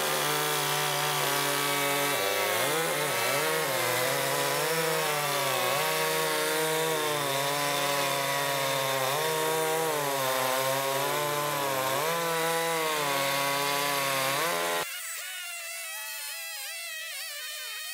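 Two-stroke petrol chainsaw running at full throttle while cutting through a log, its pitch dipping several times as the chain bites into the wood. About 15 seconds in it cuts off abruptly and quieter music takes over.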